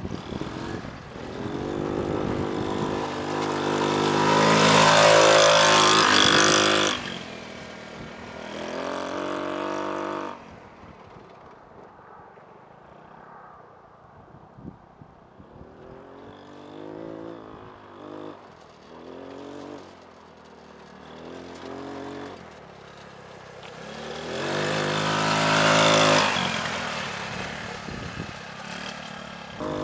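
A 150cc off-road go-kart buggy's small engine revving up and down as it drives over dirt trails. It swells loud and fades twice, loudest about five seconds in and again near the end, with shorter rises and drops in pitch in between.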